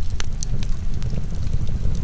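Wood fire crackling with irregular sharp pops over a steady low rumble of heavy rain.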